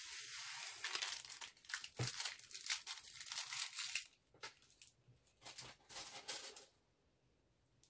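Tiny plastic beads sprinkled by hand into a glass baking dish. A short hiss of pouring beads gives way to scattered light clicks and crackles as the beads land and settle, thinning out and stopping about seven seconds in.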